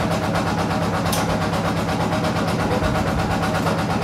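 Engine of a truck-mounted water-well drilling rig running steadily at constant speed with a fast, even pulse, driving the rig's hydraulics while its control levers are worked. A brief high tick about a second in.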